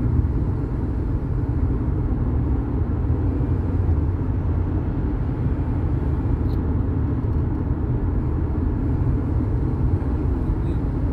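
Steady low rumble of a car being driven, road and engine noise heard from inside the cabin.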